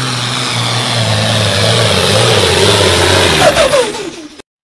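Loud engine roar over a low hum that slowly falls in pitch, with a few quick downward glides near the end, then cut off abruptly.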